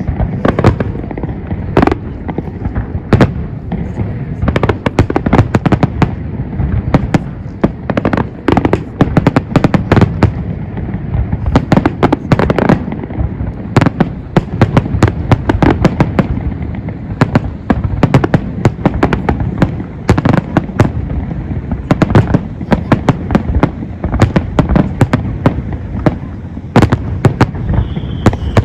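Fireworks display: a rapid, irregular string of sharp bangs over a continuous low rumble. A high whistle falls in pitch near the end.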